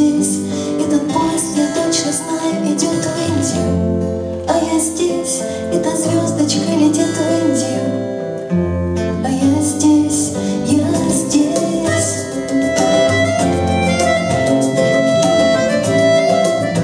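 Instrumental introduction of a live acoustic folk-rock song: acoustic guitars and bass play under a melody, with a bayan (button accordion) playing along.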